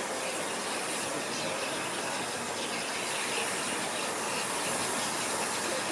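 BR Fairburn 2-6-4 tank steam locomotive approaching, heard as a steady hiss with no distinct exhaust beats.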